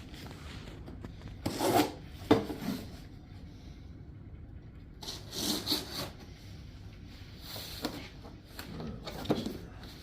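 Cardboard box and packaging being opened and handled: scraping and rustling in several short bursts.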